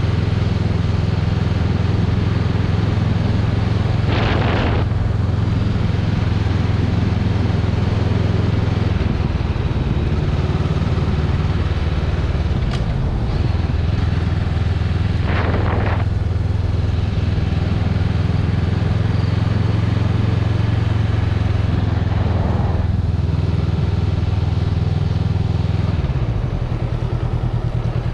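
Honda Rebel 500's parallel-twin engine running steadily while riding, heard from the rider's seat. The engine note changes about a third of the way in and eases off slightly near the end. Three short rushes of noise cut across it.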